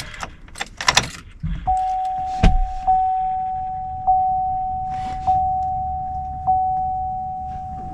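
Keys jangle and click at the ignition of a 2006 Chevy 3500 pickup, with one thump. Then the cab's warning chime starts with the ignition switched on, a single-pitched bong repeating about every 1.2 seconds.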